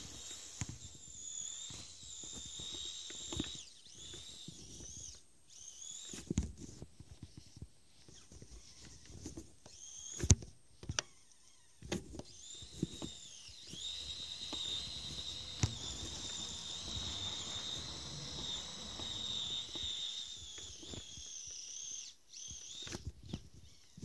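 Kyosho Blizzard RC snowcat's electric motor and drivetrain whining at a high pitch, the whine dipping and picking up again several times as the throttle changes. Low thumps and rustles run underneath, with a sharp knock about ten seconds in.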